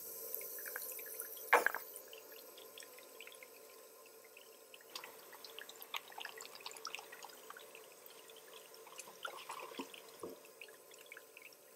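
A thin stream of water trickling from a toy kitchen sink faucet over a doll's hands, with scattered small drips into the basin. A single knock sounds about a second and a half in.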